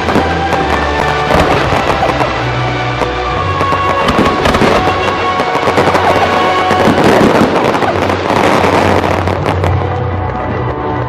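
Aerial fireworks display: shells bursting and crackling in rapid, dense reports, thickest in the middle of the stretch, with music playing along.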